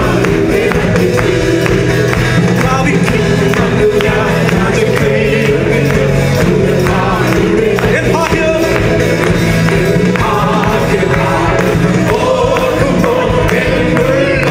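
Worship group of men and women singing a Malayalam worship song together into microphones, backed by a band with keyboard and a steady percussion beat.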